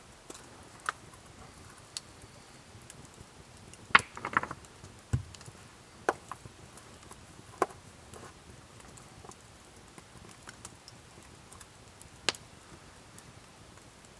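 Wood campfire crackling with scattered sharp pops. About four seconds in there is a short cluster of louder knocks, followed by a low thud.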